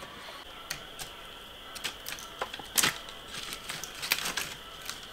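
Dry sticks being snapped by hand for kindling, a series of irregular sharp cracks with one louder snap near the middle.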